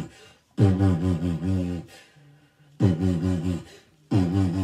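A low, wavering growl in repeated bursts about a second long, with short gaps between them. It ends one burst near the start and then gives three more, and the same pair of growls comes round twice.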